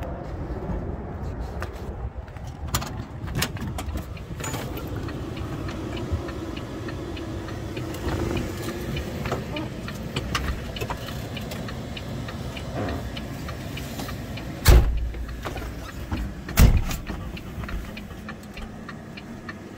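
Scattered knocks, clicks and rustling as a person climbs up into a semi-truck cab, over a steady low rumble. Late on come two heavy thumps about two seconds apart, the loudest sounds.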